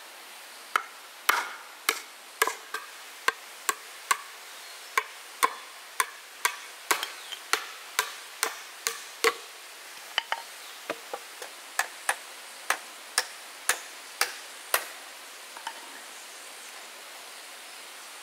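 A run of sharp hand-tool strikes, roughly two a second and unevenly spaced, that stop about three-quarters of the way through.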